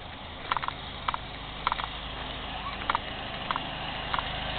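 Footsteps crunching on gravel, one or two a second, over the steady idle of a Fiat 500's rear-mounted air-cooled two-cylinder engine, which grows gradually louder as the steps approach it.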